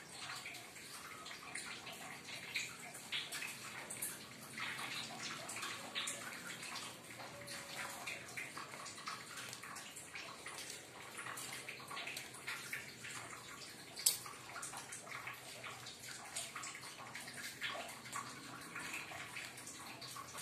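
Small splashes of water as dough balls are dipped in a tub of water, mixed with a scatter of light rustles and taps as they are rolled in sesame seeds and set down on plastic plates. One sharp click about 14 seconds in.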